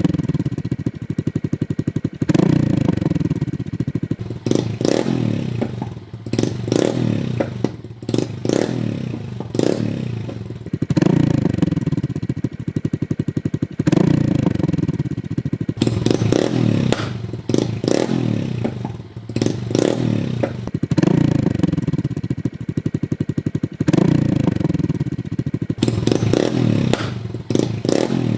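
Honda Grom's 125 cc single-cylinder engine through a modified exhaust, accelerating through the gears. The exhaust note repeatedly rises in pitch and drops back every two to three seconds. Its owner finds it still short of the dry, crisp mid-to-high tone he is after, despite a narrowed end baffle and different silencers.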